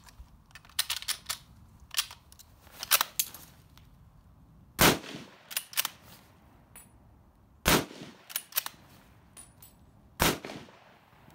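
An M1917 bolt-action rifle in .30-06 is fired three times, roughly two and a half to three seconds apart, in a timed rapid-fire string. Shorter, quieter metallic clicks of the bolt being worked come before the first shot and between the shots.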